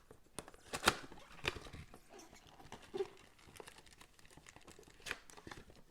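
Trading card packs and their box being handled: a few scattered light taps and clicks, with some soft crinkling of the packs' wrappers.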